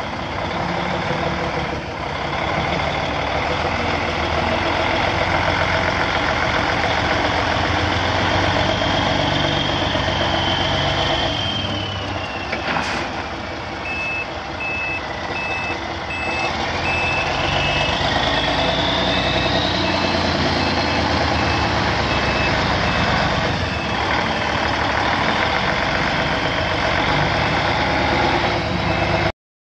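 Heavy diesel engine running steadily. From about halfway on, a backup alarm beeps over it.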